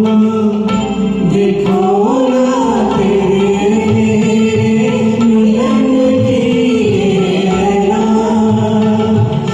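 Karaoke singing of a Hindi film song: a voice holding long, sliding notes over a recorded instrumental backing track.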